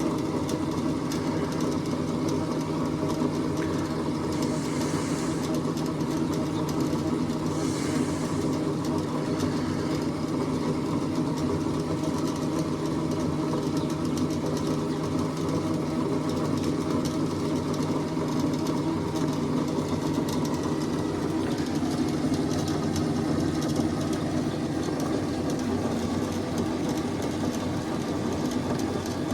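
Graco electric oil exchange pump running steadily with an even hum, pumping fresh oil back into a 454 marine engine.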